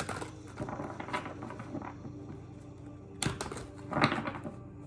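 Tarot deck being shuffled by hand: rustling and flicking of cards, with sharper bursts of cards slapping together at the start, a little after three seconds and about four seconds in.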